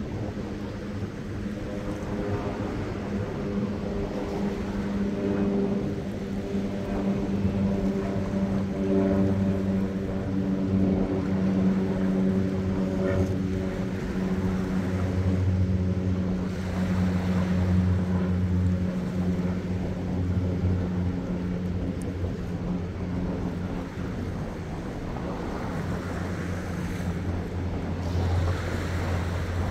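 Small waves lapping and washing over a rocky reef shelf, swelling into a louder rush about halfway through and again near the end. Under it runs a steady low engine hum whose upper tones fade out about three-quarters of the way through.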